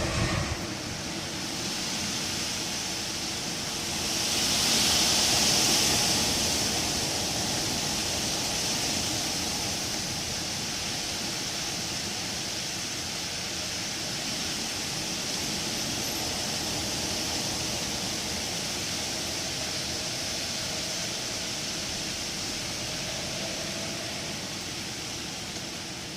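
Wind blowing through trees, a steady rushing of leaves that swells into a stronger gust about five seconds in.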